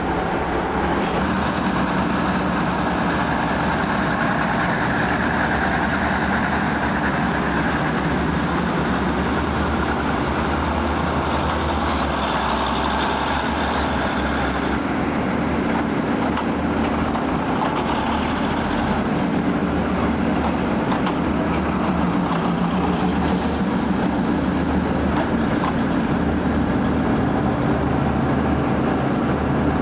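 State Railway of Thailand diesel railcars running at a station, a steady low engine drone with a few short high hisses around the middle.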